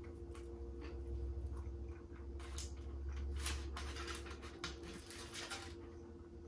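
Aluminium foil crinkling and crackling in irregular bursts as a hand digs into a foil-lined pizza box and picks up a slice, loudest in the middle.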